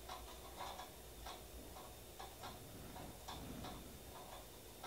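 Faint, irregular light clicks and taps, about two a second, from small manicure tools and objects being handled.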